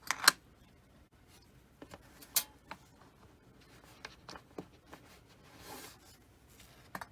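Small hard parts being handled on a workbench: scattered sharp clicks and taps, the loudest a quick double click right at the start and another about two and a half seconds in, with a brief soft rubbing sound near the end.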